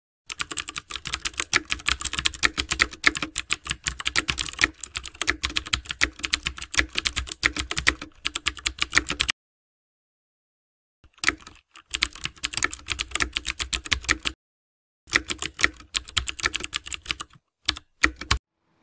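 Rapid computer-keyboard typing clicks, a typing sound effect for on-screen text being typed out letter by letter. A long run of about nine seconds is followed by a pause of about two seconds, then three shorter runs.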